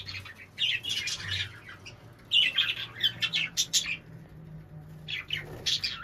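Pet parrots and cockatiels chirping and squawking in quick clusters of short, high calls, three bunches over a few seconds.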